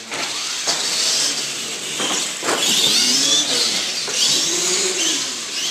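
Radio-controlled monster trucks racing, their motors and drivetrains whining high and rising and falling in pitch as they speed down the track.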